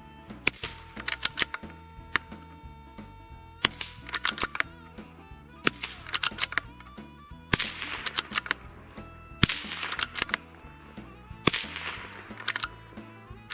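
Six suppressed .22 LR pistol shots from a Walther PPQ 22 fitted with a CGS Hydra SS suppressor, about two seconds apart, each sounding like a staple gun and followed by lighter clicks. The first three are subsonic rounds. The last three are supersonic rounds and sound sharper and louder.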